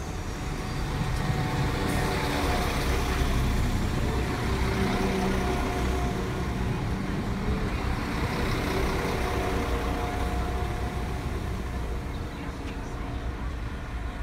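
Class 172 Turbostar diesel multiple unit running into the platform with its underfloor diesel engines and wheels on the rails. The sound builds over the first couple of seconds, holds steady, then eases off near the end as the train slows to a stop.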